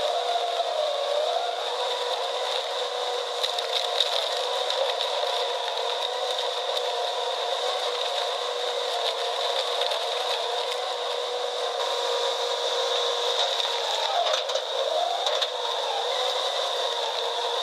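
Wood-processing machine running, a continuous steady grinding and rubbing of wood. Its pitch dips and recovers briefly near the start and again about fourteen seconds in.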